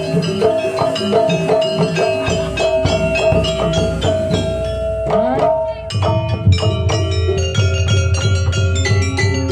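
Live Jaranan Buto music from a Javanese gamelan-style ensemble. Pitched mallet percussion is struck in a quick, even pattern over a long held tone. After a pitch glide about five seconds in, a deep drumbeat comes in under the strikes.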